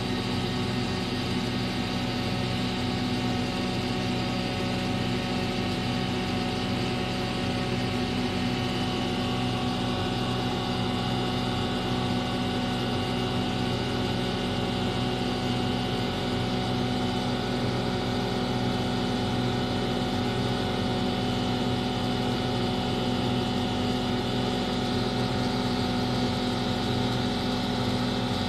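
Diesel engine of a Sany STC800 truck crane running at a steady speed while the crane hoists a load, heard from inside the operator's cab.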